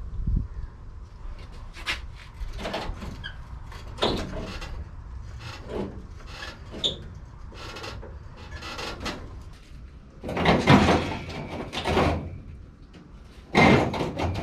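Irregular bursts of scraping and knocking from work on an early Bronco's sheet-metal floor pan, loudest in a cluster about ten seconds in and again near the end.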